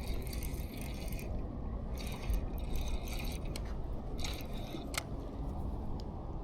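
Fishing reel being cranked in three short spells of about a second each, a fine mechanical whirr, with a few clicks, over a steady low rumble of wind on the microphone.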